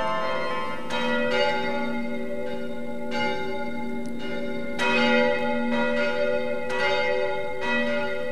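Large church bells pealing: struck again and again, roughly once a second or so, each strike ringing on and overlapping the next.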